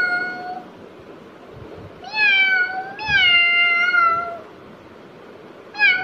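A young girl imitating a cat's meow. The first call ends about half a second in, then two more drawn-out meows come back to back about two seconds in.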